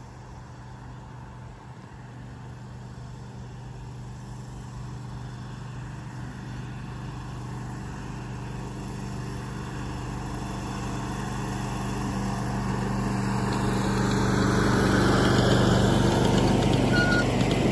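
Ride-on miniature train approaching along its track: the locomotive's engine runs with a steady low hum that grows slowly louder, loudest about fifteen seconds in as the train draws near.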